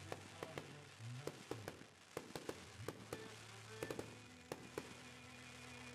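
Fireworks going off in a quick, irregular string of sharp cracks and pops, several a second, as aerial shells and stars burst overhead.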